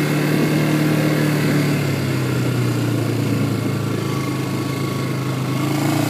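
Quad bike (all-terrain vehicle) engine running steadily while the bike is driven slowly over a muddy dirt road. The low hum holds an even pitch; an upper tone in the engine note drops away about two seconds in and comes back near the end.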